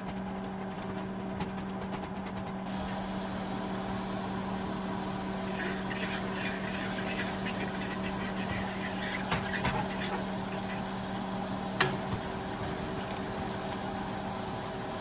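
A steady low mechanical hum, with scattered clicks and clatter in the middle and one sharp knock near the end, just after which the lowest part of the hum stops.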